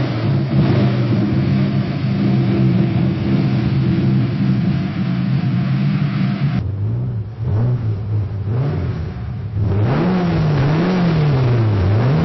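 Car engine running at a steady speed, then, about six and a half seconds in, a different car engine revved up and down repeatedly in a series of quick throttle blips.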